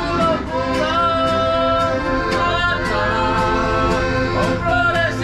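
A small street band playing live: a voice singing over an accordion, with a steady beat.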